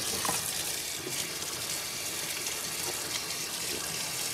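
Water running steadily from a tap into a stainless-steel fish-cleaning sink, splashing over fish and a knife held under the stream.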